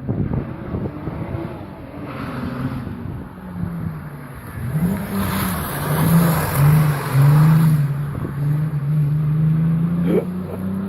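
Volkswagen Golf VR6 narrow-angle V6 engine accelerating hard, its pitch climbing and dropping several times, loudest and most steady around the middle.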